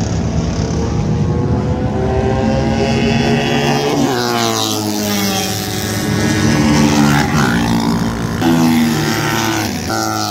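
Racing motorcycle engines at full throttle as bikes go by on the track, the pitch climbing and then dropping back with each upshift, several times in the second half. One bike passes close near the end.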